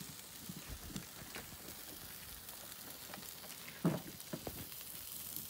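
Steak sizzling on a charcoal kettle grill as barbecue sauce is brushed on, a steady fine hiss with small crackles. One short knock about four seconds in.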